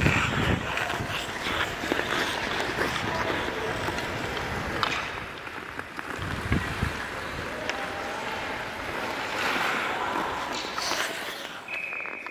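Ice skate blades scraping and hissing on a rink as young bandy players skate, with a few sharp clicks of sticks on the ball.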